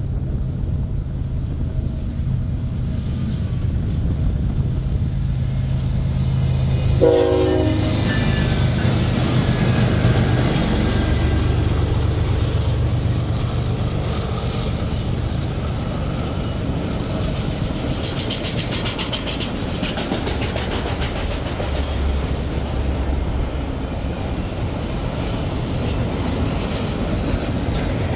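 Diesel-electric freight train passing: a steady low locomotive drone, a short horn sound about seven seconds in as the locomotives go by, then the rumble of the freight cars with rhythmic clickety-clack of wheels over the rail joints.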